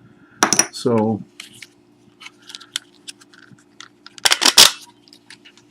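Hands handling a plastic clamp-style phone mount used as a multimeter stand: small plastic clicks and rustles, with a louder clatter about four seconds in. A steady low hum runs beneath.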